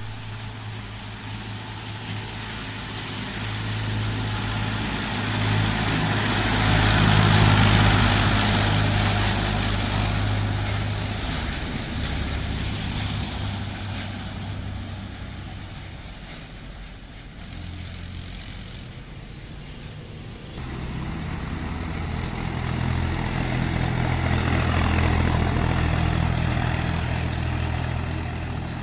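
Mahindra tractor diesel engine running on a road: a steady low engine drone with tyre and road noise. It swells louder twice as tractors go by, once about a quarter of the way in and again near the end, with an abrupt change about two-thirds of the way through.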